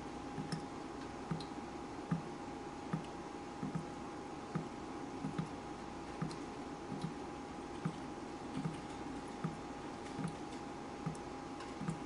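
Water dripping at a steady pace, a little faster than one drop a second, each drop a short low plop with a faint tick above it. A steady faint tone hums underneath.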